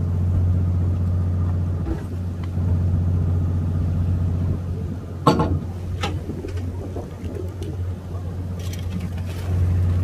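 A fishing boat's engine running steadily with a low, even drone. A short, sharp sound stands out about five seconds in.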